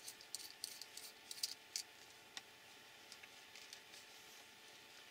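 Faint small clicks and rustles of tiny metal, plastic and rubber RC shock-absorber parts handled between the fingers: dense for the first two seconds, then a single click and a few scattered ticks.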